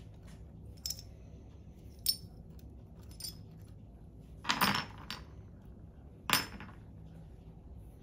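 Small metal jumper-cable clamp fittings clinking and clattering as they are picked out of a plastic bin of stripped wire. A few light clicks come first, then two louder clatters, one just past the middle and one about three-quarters of the way through.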